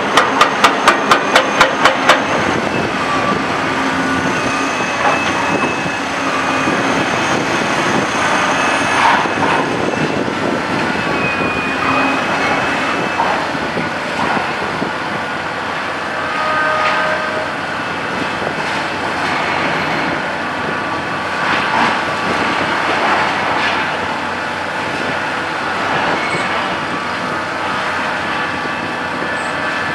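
Liebherr R984C long-reach demolition excavator breaking concrete. A fast, even hammering of about four blows a second stops about two seconds in. Then comes a steady grinding and scraping, with squeals and crunches, as the concrete breaks and rubble falls.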